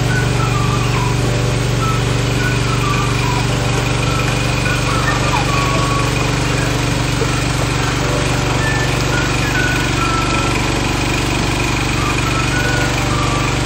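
A small engine running steadily at a constant speed, with faint high wavering calls coming and going over it.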